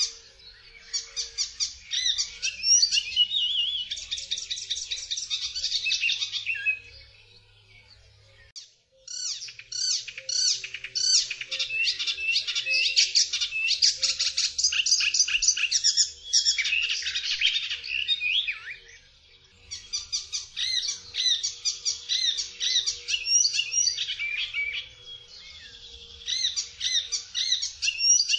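Icterine warbler singing: long, fast phrases of rapidly repeated high notes, broken by short pauses about seven seconds in and again near twenty seconds.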